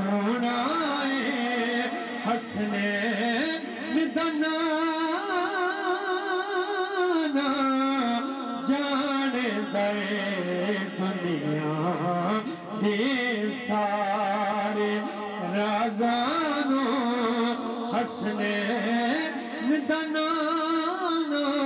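A man's voice sings a Punjabi naat in long, wavering held notes with many melismatic turns.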